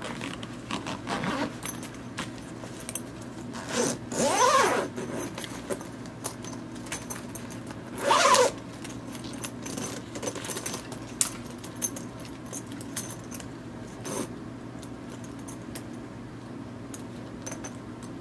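Zippers on a Dakine Mission Photo 25L backpack's pouches being drawn, with two longer zips about four and eight seconds in. Between them come light clicks and rustles of the zipper pulls and nylon fabric.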